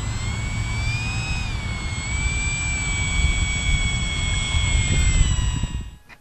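Radio-controlled model airplane's motor and propeller whining at a steady high pitch that drifts slightly up and down, with wind rush over the onboard camera. The sound drops away near the end.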